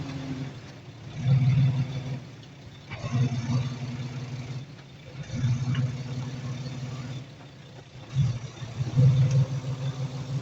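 Bulldozer's diesel engine working under load, rising to loud surges about every two seconds and dropping back between them.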